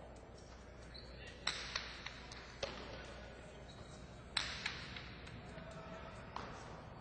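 Jai-alai pelota cracking against the fronton's walls and floor in a rally: about seven sharp impacts in uneven pairs, the loudest about a second and a half in and just past four seconds, each with a brief ring of the hall, over a steady murmur of the arena.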